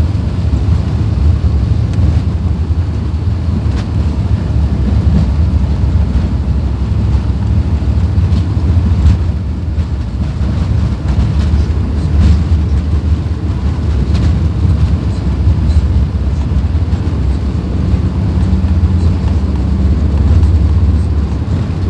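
Steady low rumble of an Airbus A380-800's engines and rushing air, heard inside the passenger cabin.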